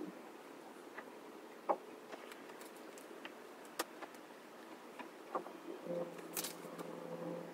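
Quiet room with faint scattered clicks and soft rustles from a paperback being held and handled while read. About six seconds in, a low steady hum comes in.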